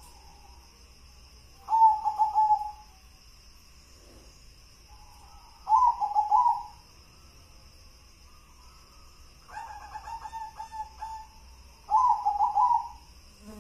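Zebra dove (perkutut) cooing: three loud, rolling coo phrases, each about a second long, with a fainter, quicker run of coos between the second and third.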